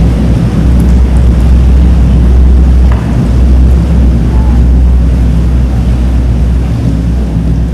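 Boat engines running with a low, steady rumble.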